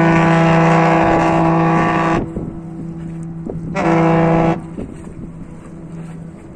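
The ferry Elyros's ship's horn sounding one long, deep blast that stops about two seconds in, then a short blast of under a second a moment later, with a low rumble underneath.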